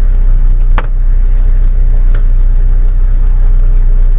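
Steady low road and engine rumble of a car, as heard from inside the cabin while driving, with a single sharp click a little under a second in.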